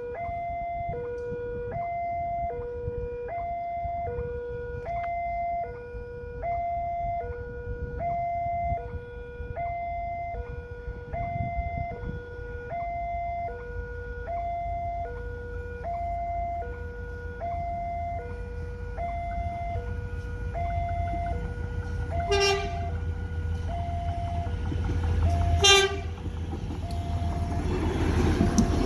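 Railway level-crossing warning alarm chiming, switching back and forth between a low and a high tone about once a second. An approaching KAI Bias commuter train rumbles closer and sounds its horn twice in short blasts near the end, then starts rushing past the crossing.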